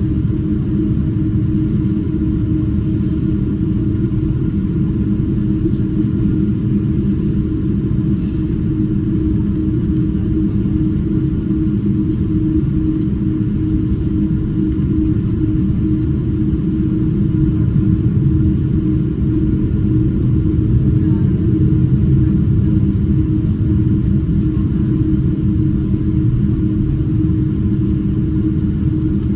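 Cabin noise of a Boeing 777-200ER in motion: a loud, steady low rumble from the jet engines and airflow, with a constant hum, swelling slightly for a few seconds around the middle.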